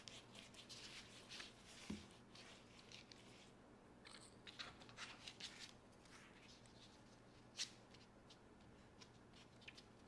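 Faint rustling and scratching as dry papads are brushed with oil by a silicone brush and handled on a paper plate, with a soft thump about two seconds in and a light tap later on.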